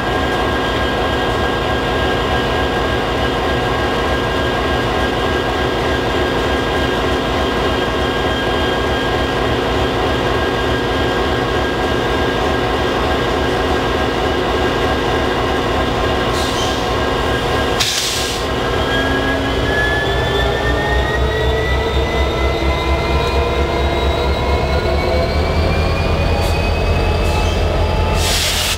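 EMD SD60E diesel locomotive's 16-cylinder two-stroke engine idling close by with a steady whine and low rumble. A little past halfway there are short hisses, then the engine's whine rises steadily in pitch and the rumble grows louder as it throttles up and the locomotive starts to pull away.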